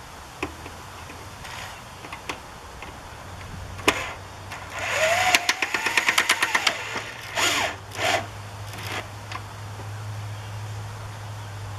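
Power drill driving screws. About five seconds in the motor whine rises and falls over a burst of rapid ticking, and two short spurts follow a second or two later.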